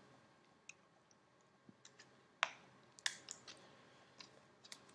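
Scattered light plastic clicks and taps as a Samsung Galaxy S4's casing is handled and pressed back together after a charging-port repair. The sharpest click comes about two and a half seconds in, with a quick run of clicks just after.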